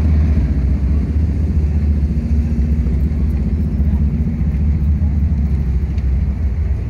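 Car engine running at low speed with a steady deep rumble, heard from inside the car as it drives slowly.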